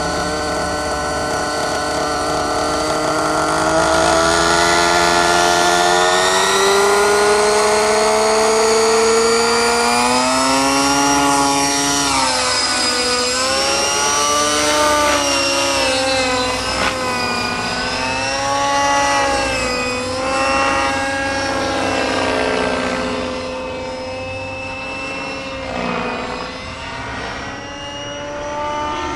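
Align T-Rex radio-controlled helicopter, its rotor and drive whining in a steady stack of pitches. The pitch climbs over the first ten seconds as the rotor spools up from the ground, then swings up and down repeatedly as the helicopter flies banked and inverted manoeuvres.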